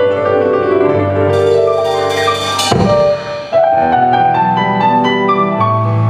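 Live band playing a song's instrumental intro, with keyboard chords over bass and drums. A cymbal wash builds about a second in and ends on a hit near the middle. After a short break the band comes back in.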